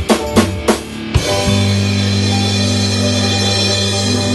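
Rock band with drum kit, electric guitars and keyboards ending a song: a quick drum fill with the band, a final hit just after a second in, then the last chord held and ringing steadily.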